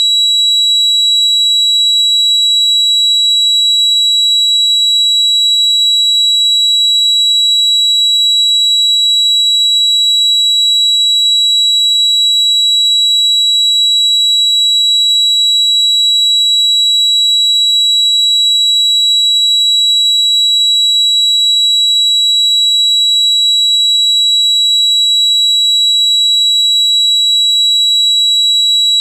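Simulated tinnitus: one steady, high-pitched ringing tone that holds unchanged in pitch and level, over a faint high hiss.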